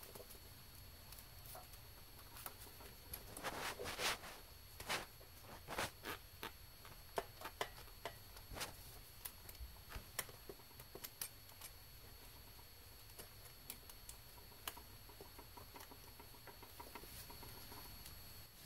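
Faint scattered clicks, taps and rubbing of hands working a fuel rail and its direct-injection fuel injectors down into the cylinder head's injector bores, with the injector wiring harness being handled around them. The clicking and rubbing is busiest about three to six seconds in, then thins to occasional small clicks.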